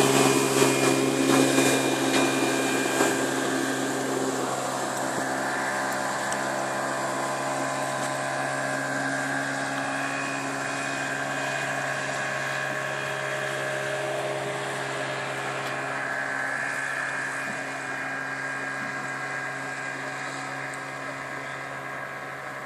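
Motorboat engine running at a steady speed, with water rushing past the hull; it slowly grows quieter.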